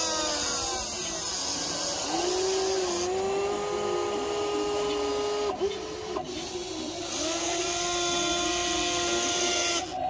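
Electric motors of a WLtoys 16800 RC toy excavator whining as the boom, arm and bucket move. The pitch steps and glides as the functions start and stop, with a short break about halfway. A hissy grinding edge rides over the first few seconds and again near the end.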